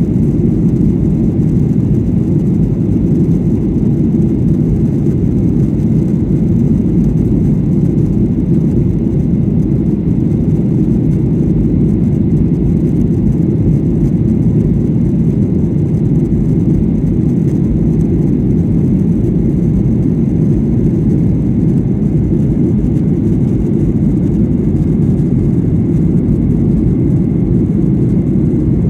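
Steady low rumble inside the cabin of a Boeing 737-800 climbing after take-off: engine and air noise, with no change in level or pitch.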